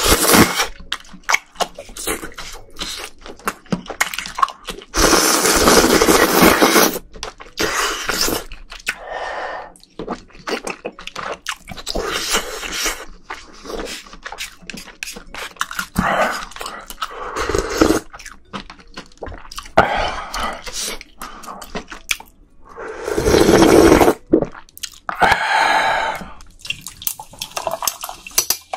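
Close-miked eating of ramen noodles: repeated loud slurps of noodles off a spoon, the longest a few seconds in and again near the end, between smacking chews and clicks of chopsticks and spoon. In the last moment a can of soda starts to pour over ice in a glass.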